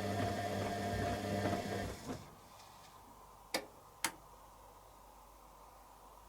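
Candy Aquamatic 100F washing machine's drum motor running during the wash stage, then stopping abruptly about two seconds in. Two sharp clicks follow about half a second apart.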